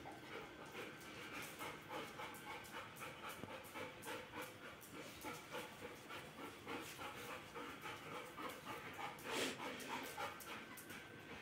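Golden retriever panting steadily, with claws clicking on the tile floor as the dogs move about. There is a louder short rush of noise about nine seconds in.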